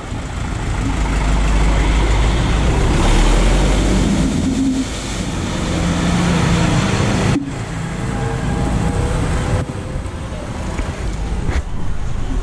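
Modern John Deere tractor's diesel engine running as it drives through a shallow ford, its tyres splashing through the water and growing louder as it passes close by. About seven seconds in the sound cuts to a quieter steady engine and water noise.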